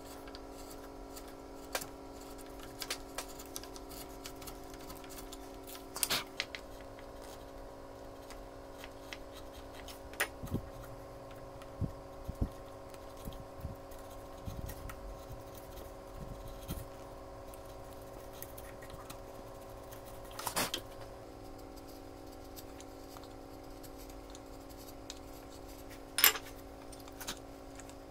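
Small chisel paring and scraping wood inside the throat of a wooden hand plane: scattered light scrapes, clicks and taps, with a few dull knocks partway through and the sharpest click near the end, over a steady hum of several tones.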